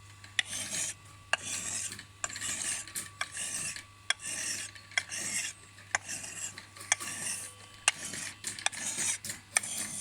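Billhook blade being pushed along a sharpening stone that is worn into a dip, one rasping stroke about every second, with sharp clicks between some strokes.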